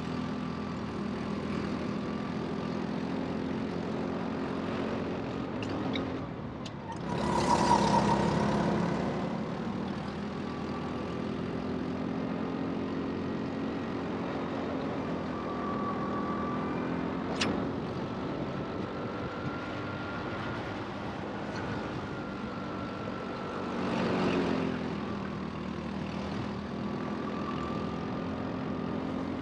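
Rental go-kart running under race load: a steady drone with a whine that rises and falls. A loud rushing surge comes about seven seconds in, a sharp click just past halfway, and a smaller swell near the end.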